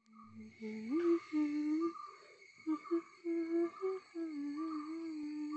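A voice humming a slow melody in held, gliding notes, with a faint steady high-pitched tone behind it.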